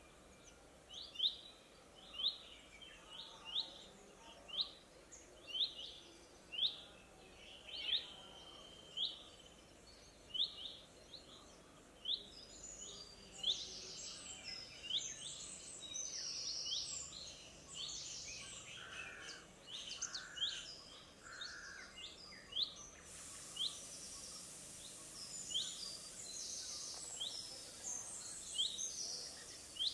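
Birds calling: one bird repeats a short, sharp rising chirp over and over, about once a second. About halfway through, other birds join with denser, varied chirps. A steady high hiss comes in about three-quarters of the way through.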